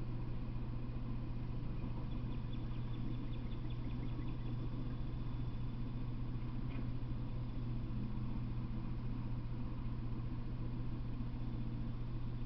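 Steady low hum with even hiss; no train passing. A few faint high chirps sound about two to four seconds in.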